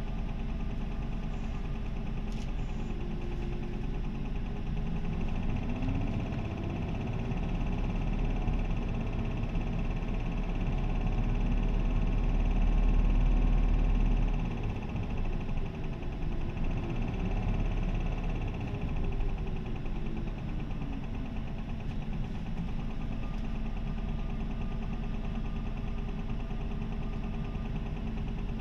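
Isuzu 2DG-LV290N3 city bus's diesel engine, heard from inside the bus. It runs steadily, then climbs in pitch and grows louder for several seconds as the bus accelerates. The note drops suddenly about halfway through, rises and falls once more, then settles back to a steady run.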